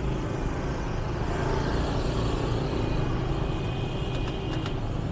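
City street traffic: a steady vehicle engine hum with road noise. A thin high-pitched tone comes in about three seconds in, and a few clicks follow near the end.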